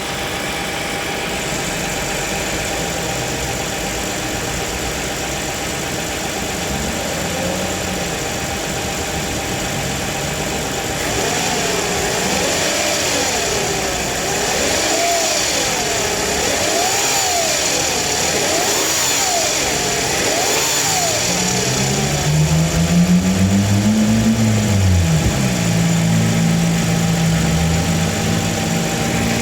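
Toyota Camry XV50's 3.5-litre V6 running in the engine bay with an extraneous noise that the mechanics cannot name. Through the middle a wavering tone swings up and down over and over, and about three quarters of the way through the engine revs up and falls back.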